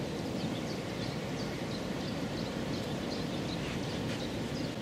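Small birds chirping repeatedly, short high chirps several times a second, over a steady low background rumble of outdoor ambience.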